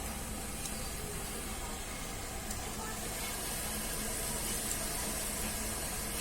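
Food sizzling in a hot pan, a steady hiss that grows slightly louder about halfway through.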